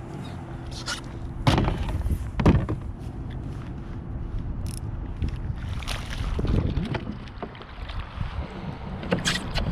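Splashes and knocks on a kayak hull as a small bass is fought and landed, loudest about one and a half and two and a half seconds in. A steady low hum runs underneath and fades out about halfway through.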